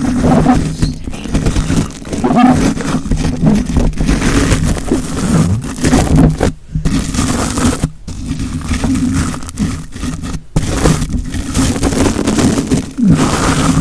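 Close-miked scratching and rubbing on a surface, a continuous rasping texture with brief pauses about six and a half, eight and ten and a half seconds in.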